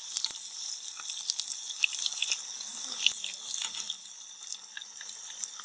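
Batter-coated chicken pieces deep-frying in a pan of hot oil: a steady, high sizzle with many small crackling pops.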